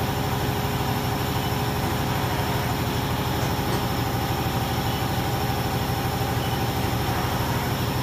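Steady low hum of a shop air compressor and a Haas CNC mill, the mill moving its axes through a probing cycle. A steady higher whine runs over it and drops away shortly before the end.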